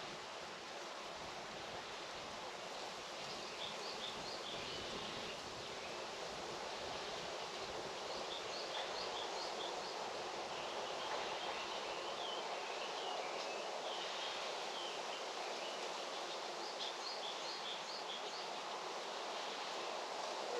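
Farm countryside ambience: a steady outdoor hiss with a bird singing short bursts of quick high notes, four times.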